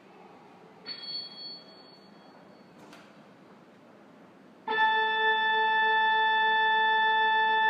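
Low hiss with a faint high held note, then about two-thirds of the way in an organ comes in suddenly with a loud sustained chord of many notes, held steady.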